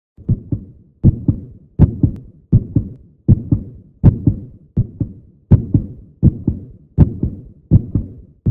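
Heartbeat: a steady lub-dub rhythm, each beat a pair of dull thumps, about eighty beats a minute.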